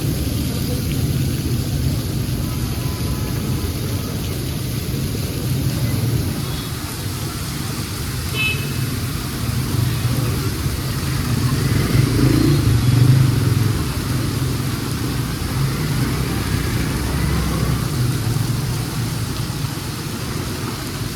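Street traffic running in heavy rain: car and motorcycle engines humming and passing, over a steady hiss of rain and wet tyres, slightly louder about halfway through.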